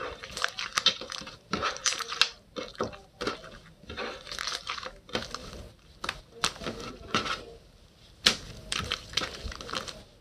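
Purple galaxy slime being squished and stretched by hand, giving irregular clusters of sharp crackles.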